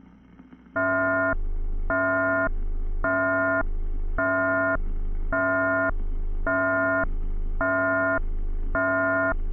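Electronic alert tone of a mock Emergency Alert System broadcast, alternating between a high tone and a low tone, each held about half a second. It starts about a second in, after faint hiss.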